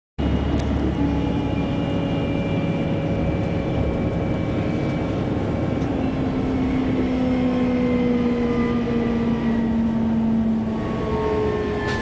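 Mercedes-Benz O-500 coach's diesel engine running as the bus drives, a steady rumble with several whining tones that slowly fall in pitch.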